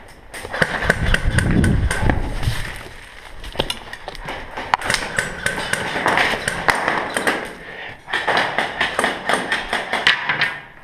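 Irregular sharp clicks and taps with thumps and a low rumble about a second in, the sounds of movement and gear during indoor airsoft play.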